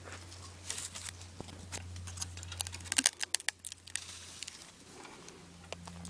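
Rustling and crackling with scattered sharp clicks and snaps, bunched together and loudest about three seconds in, over a steady low hum.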